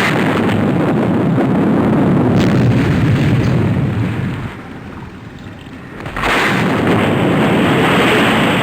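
Stock sound effect of loud rumbling blasts, like explosions: a sudden start, a lull about four and a half seconds in, then a second blast just after six seconds.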